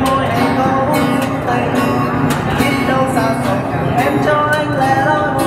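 Acoustic guitar playing an instrumental passage between sung verses, strummed chords with short melody notes over them.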